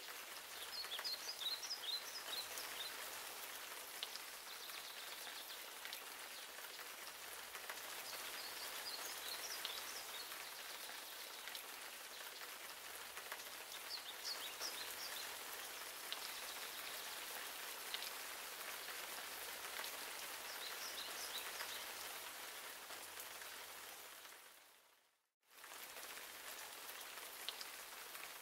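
Steady rain pattering, with a bird chirping in short phrases about every six seconds. The sound dips out briefly and returns near the end.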